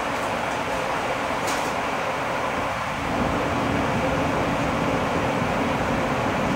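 Steady hum and hiss of a subway car standing at a station with its doors open, its onboard equipment running while it waits to depart. A faint click about a second and a half in.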